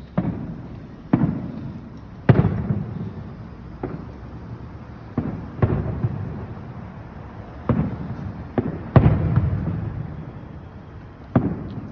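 Aerial fireworks shells bursting: about ten sharp booms at uneven intervals, each trailing off in a rumble.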